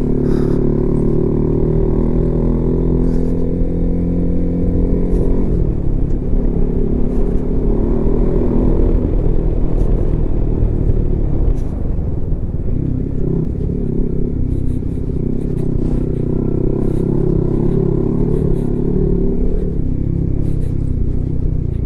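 Honda CB150X motorcycle's single-cylinder engine running under load with the bike fully loaded, on a rough unpaved road. The engine note holds steady for about five seconds, then rises and falls, with scattered short clatters from the bike over the bumps.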